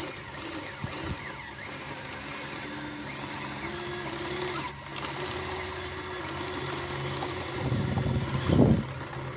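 Electric drive motors and gearboxes of a toy RC crawler bulldozer whining as it drives on its tracks and pushes loose dirt, the pitch stepping up and down as the throttle changes. A brief, louder burst of low rumble near the end.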